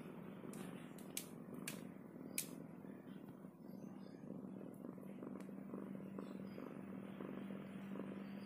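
Mother cat in labour purring faintly and steadily, with three sharp little clicks in the first few seconds.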